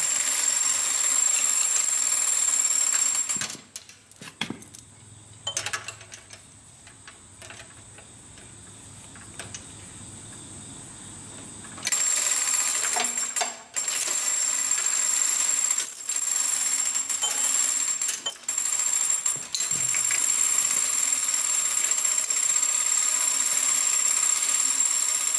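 Hand chain of a manual chain hoist being pulled, the links rattling through the hoist in a fast, ringing metallic clatter as it turns an engine block over. The clatter stops after about three and a half seconds, leaving a few knocks, and starts again about twelve seconds in.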